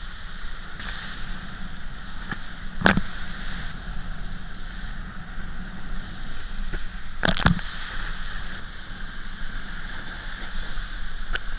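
Wakeskate board planing across lake water behind a cable tow: a steady rush of water and spray on an action camera. Sharp knocks about three seconds in and a close pair about seven seconds in.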